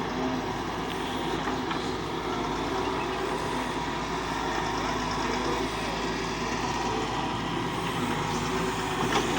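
Doosan DX140W wheeled excavator's diesel engine running steadily.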